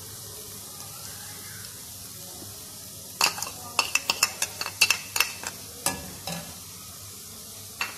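Metal spoon scraping and tapping sliced green chillies out of a bowl into a metal kadai, then a ladle clinking against the pan: a quick run of sharp clicks from about three seconds in to six and a half, with one more near the end. Under it, a faint steady sizzle of fenugreek leaves frying in oil.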